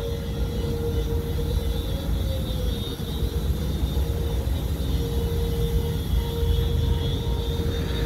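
Steady engine-and-pump drone of a pressure washer, with a single steady mid-pitched tone held over it that wavers briefly about two seconds in.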